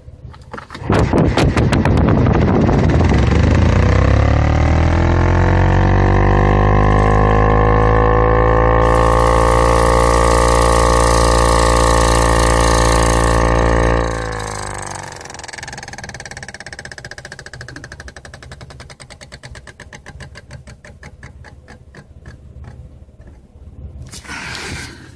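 A car's air conditioner switching on with a loud drone that rises in pitch over several seconds and then holds steady. It cuts off suddenly about fourteen seconds in, leaving a quieter rattle, with a short hiss near the end.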